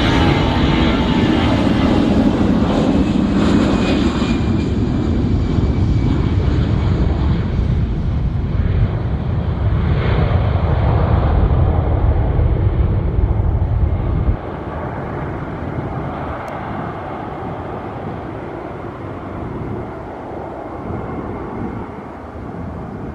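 Jet airliner's engines rumbling loudly as it passes close, with a whine that falls in pitch in the first few seconds. About 14 seconds in, the loud low rumble cuts off abruptly, leaving a quieter rumble that slowly fades.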